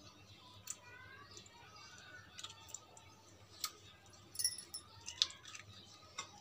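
A spoon scooping pieces from a ripe mango and tapping against a glass bowl: a handful of light, sharp clicks at irregular intervals, with a quick cluster of them a little past the middle.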